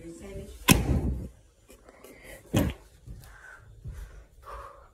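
Two sharp bangs: a loud one less than a second in and a second one about two and a half seconds in, with faint voice sounds between them.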